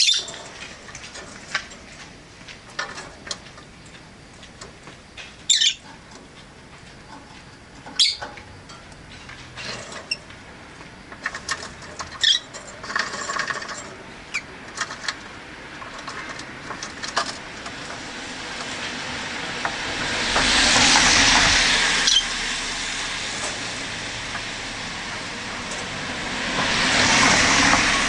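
Rosy-faced lovebirds giving short, sharp chirps every few seconds, while two road vehicles pass in the street, each one's noise swelling and fading, the second near the end.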